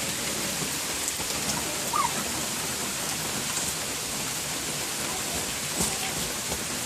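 Steady rain falling, an even hiss of drops on the ground.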